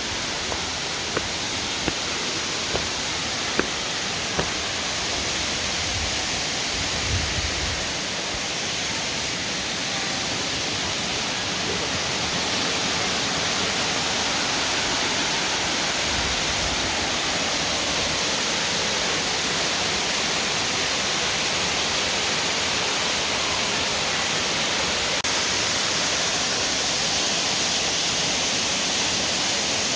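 Steady rush of a waterfall, growing slightly louder. A few light knocks, about one a second, come in the first few seconds.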